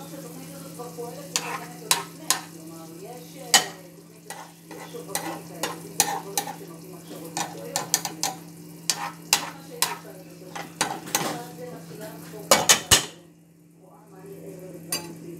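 Tomato sauce and eggs sizzling in a frying pan while a metal spoon scrapes and taps against the pan many times. Near the end a few loud clinks come as the glass lid goes on, and the sizzle is muffled.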